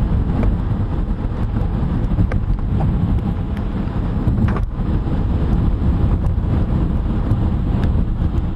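Strong tornado winds blowing against the car and across the microphone: a loud, steady low rumble, with scattered sharp ticks and one louder crack about four and a half seconds in.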